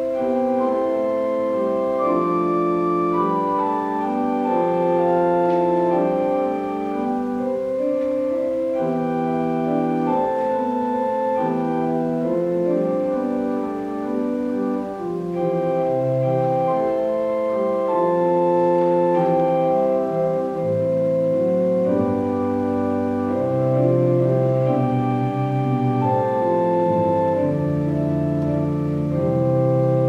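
Church organ playing a slow hymn arrangement in held chords that change every second or so. Deeper bass notes join about halfway through and carry on under the chords.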